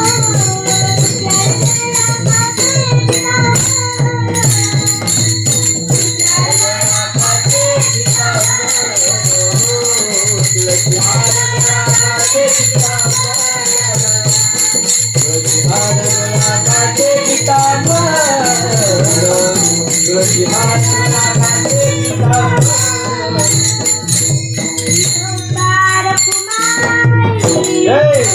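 Marathi kirtan panchapadi: a woman singing devotional verses, a continuous wavering melody, over steady percussion with jingling, ringing metallic cymbals and a low drum beat.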